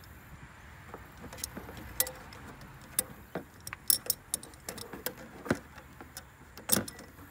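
Pliers clicking and scraping against a metal hose clamp on a radiator hose, a string of sharp, irregular metallic clinks with the loudest near the middle and near the end.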